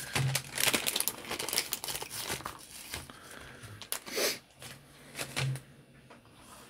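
Crinkling and rustling of the parts packaging being handled by hand to get out a new Beretta 92FS trigger spring: a dense run of crackly rustles that thins out and stops about two-thirds of the way through.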